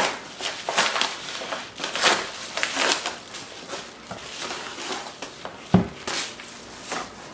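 Yellow padded paper mailer being torn open and rustled, with crackling paper noise as the box inside is pulled out. A single thump about six seconds in as the cardboard box is set down on the table.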